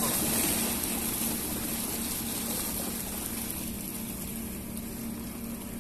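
Sea waves washing and splashing against a rocky shore: a steady rushing wash that eases slightly after the first few seconds.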